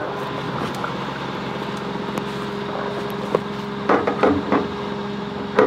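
An engine idling with a steady hum, with a few short knocks about four seconds in.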